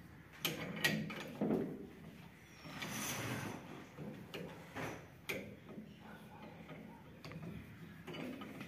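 Socket wrench ratcheting and clinking against metal as bolts on a combine harvester's shaft flange are tightened by hand, with scattered clicks and short knocks at irregular intervals.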